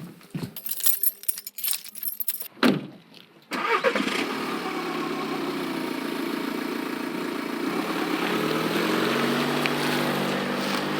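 Playback of recorded sound effects: a few scattered clicks and a sharp clunk, then about three and a half seconds in a car engine starts abruptly and keeps running, its pitch rising slightly near the end.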